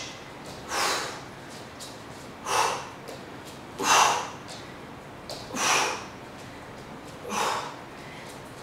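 A woman's sharp, forceful exhales, one with each knee lift, coming about every second and a half to two seconds, five in all.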